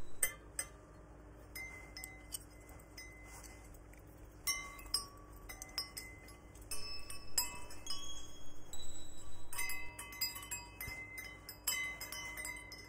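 Handmade wind chime tuned to a major key, its metal chimes struck again and again at uneven moments, clear tones ringing and overlapping for about a second each, with light clinks of hooks and chain as it is handled. Strikes come thickest about half a second in, around five seconds in, and over the last few seconds as it swings.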